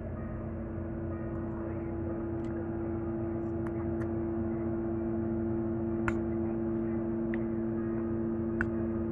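Steady hum of a window air conditioner, with a handful of short clicks and clinks from a spoon and eating scattered from about halfway through.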